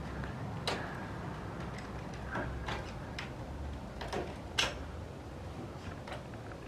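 A few scattered light clicks and scrapes of hand work on the screen panel and its frame, the loudest about four and a half seconds in, over a low steady rumble.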